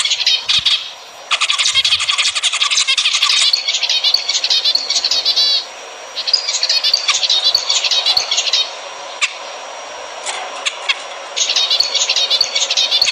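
Zebra finches singing: several bursts of rapid, harsh chattering notes with short pauses between them.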